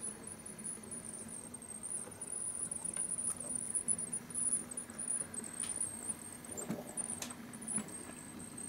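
Faint steady hum with a thin, wavering high-pitched whine from a small electric motor: a Viessmann model tipper truck driving itself along the layout road. A few light clicks come in the second half.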